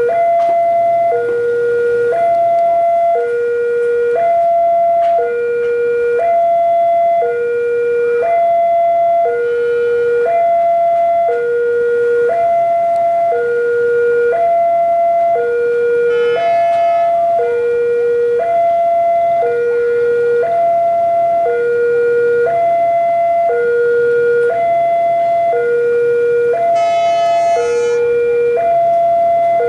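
Electronic two-tone warning alarm of a railway level crossing, switching between a higher and a lower tone about once a second as a train approaches. In the second half, a low rumble from the approaching diesel locomotive builds underneath, and two short higher-pitched sounds cut in briefly.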